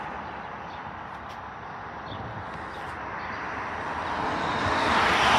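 Road traffic passing: a car's tyre noise fades away, then another vehicle approaches and grows louder near the end.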